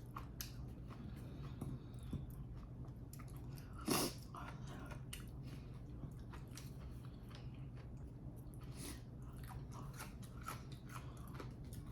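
Close-miked eating: chewing and biting with many small wet clicks over a steady low hum, with one louder, brief noise about four seconds in.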